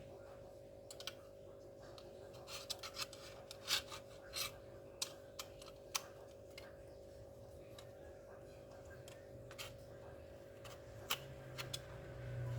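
Scattered light clicks, taps and scrapes of small laptop parts being handled: the SSD and the hard-drive bracket during a hard-drive-to-SSD swap. The clicks are busiest in the first half, over a faint steady hum.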